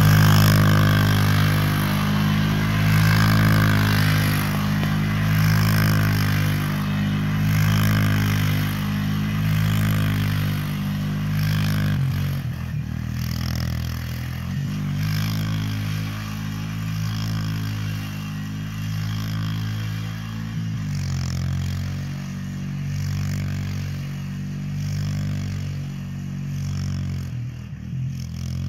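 ATV engine revving up and down while spinning donuts in snow, the revs swelling and dropping every couple of seconds. It grows fainter over the second half as the quad drives farther off.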